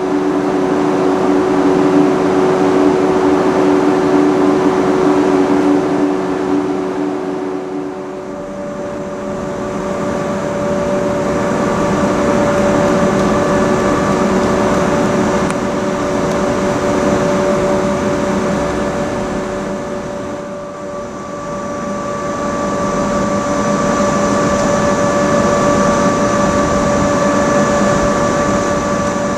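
KuMoYa 443-series inspection electric train standing at a platform, its onboard electrical equipment humming steadily with several fixed tones. The pitch of the hum shifts about eight seconds in.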